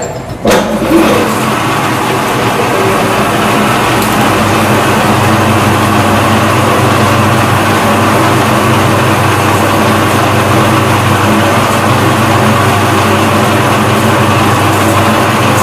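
Manual metal lathe starting up with a couple of knocks in the first second, then its motor and gearing running steadily with a constant hum.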